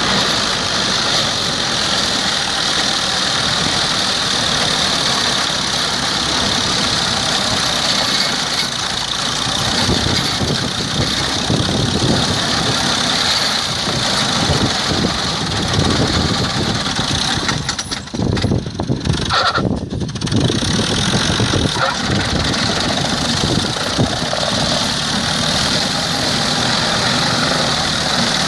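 Rakovica 65 tractor's diesel engine running hard under load while its Rinieri flail mulcher chops through brushwood, a dense, steady clatter of flails and engine. The tractor is struggling a little with the mulcher. The level drops briefly about two-thirds of the way through.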